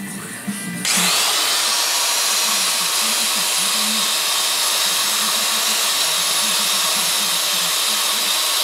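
Hand-held rotary grinder with a wire-wheel brush starting about a second in, its pitch rising briefly as it spins up, then running steadily with a loud hiss as it scrubs the outside of the aluminium cylinder of a Yamaha R1Z250 two-stroke engine clean.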